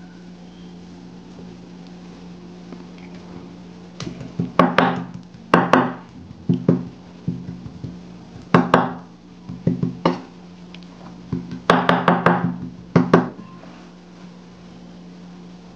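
Kitchen knife chopping the flesh of a pitted umeboshi on a wooden cutting board: several groups of quick sharp knocks, starting about four seconds in and stopping near the end, over a steady low hum.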